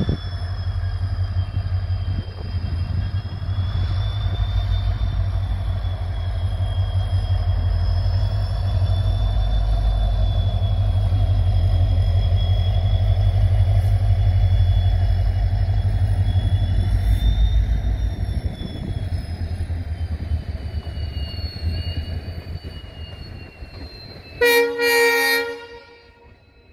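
A diesel-hauled passenger train rolls past, its wheels and coaches making a heavy low rumble with a rapid thumping. A thin, wavering high wheel squeal runs over it. The rumble fades as the coaches draw away, and near the end a train horn sounds a short double blast.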